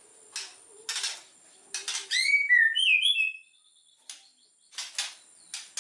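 White-rumped shama (murai batu) singing: short harsh rasping notes repeated through the phrase, with a loud run of clear, sliding whistled notes about two seconds in.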